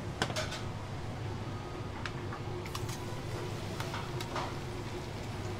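Long cooking chopsticks clicking against a ceramic bowl as squid-leg and scallion tempura batter is stirred, over a steady kitchen fan hum. In the second half comes a faint hiss as the batter goes into the deep-fryer oil.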